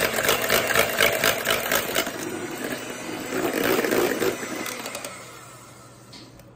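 Electric hand mixer whipping egg whites and sugar to a light foam in a stainless steel bowl, with rapid clicking in the first two seconds. The sound dies away from about five seconds in.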